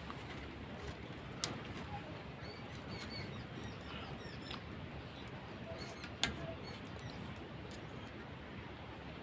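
Faint background ambience: a steady low rumble with scattered faint bird chirps, and two sharp clicks, about a second and a half in and about six seconds in.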